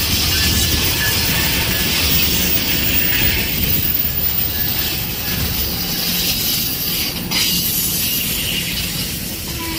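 Amtrak single-level passenger cars rolling past close by as the train pulls into the station: a steady rumble and hiss of steel wheels on rail.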